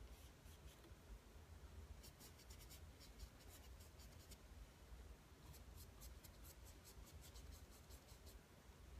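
Faint, scratchy strokes of a paintbrush working oil paint on canvas: a run of short quick dabs about two seconds in, and another from about five and a half seconds until near the end.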